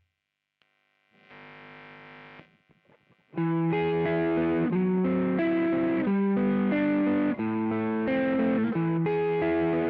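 Electric guitar played through a JOYO Vintage Overdrive pedal. After a moment of silence and a short, quieter held chord, a loud overdriven riff of changing notes starts about three seconds in.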